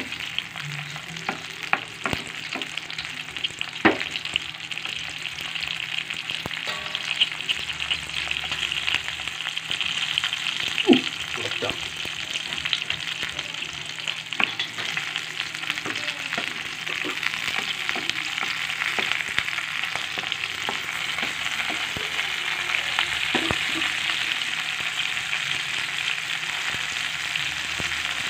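Chilies and shallots frying in oil in a nonstick pan: a steady sizzle, with scattered clicks and scrapes from a spatula stirring them, mostly in the first half.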